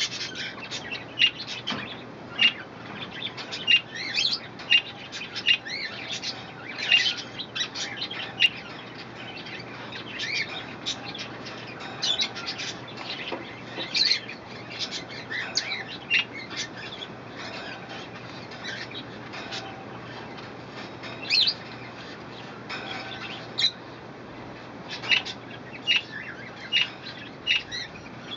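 Pet budgerigars chirping in a steady run of short, quick calls, some of them sweeping up or down in pitch.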